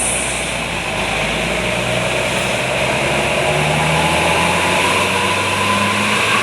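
Heavy vehicle engine running steadily in road traffic, its pitch shifting slowly up and down over a constant road noise.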